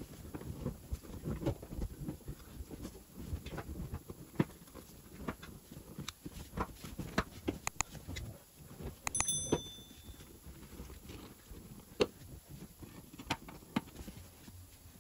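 Car rear seat cushion being pushed down and settled back into place: rustling and soft thuds at first, then scattered sharp clicks and knocks, with one short metallic clink about nine seconds in.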